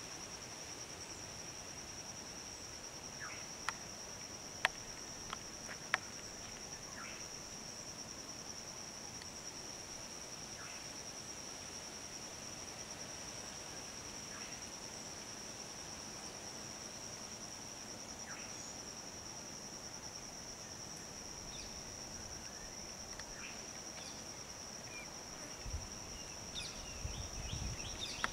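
Steady high-pitched insect drone, with scattered faint short chirps and a few sharp clicks about four to six seconds in. A low rumble comes in near the end.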